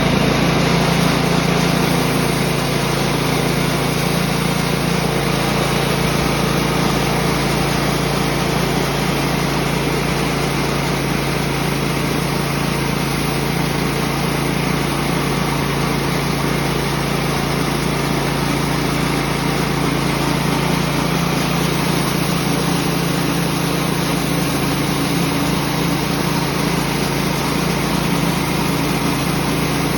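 Small gasoline engine of a portable sawmill running steadily at a constant speed.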